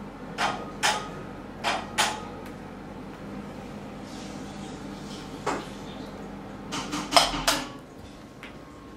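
A series of sharp knocks and clicks over a steady low hum: two pairs in the first two seconds, a single knock a few seconds later, and a quick cluster near the end that is the loudest.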